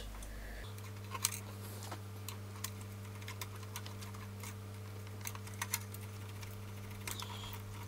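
Scattered light clicks and taps of hands handling small parts inside an open radio amplifier chassis, over a steady low electrical hum that shifts just under a second in.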